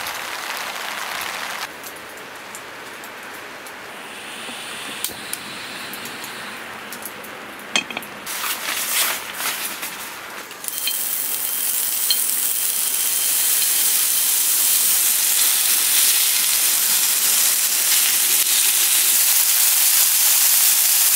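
Meat sizzling on a hot grill pan. It starts suddenly about halfway through and grows steadily louder. Before it come scattered clicks and knocks of handling.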